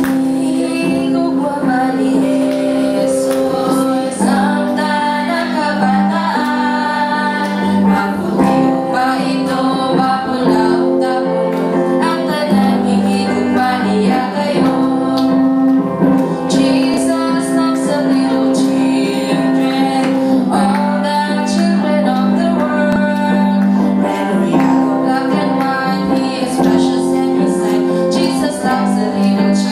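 Women singing a worship song with instrumental accompaniment.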